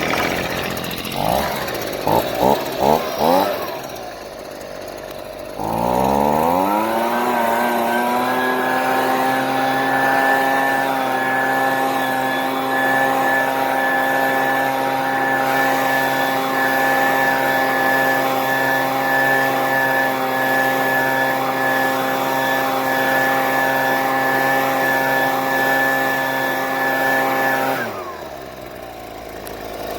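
Husqvarna 125BVX 28cc two-stroke handheld leaf blower being started: a few short bursts of engine sound in the first three seconds, then about six seconds in it starts and revs up to full throttle. It runs steadily at high speed, then drops off near the end.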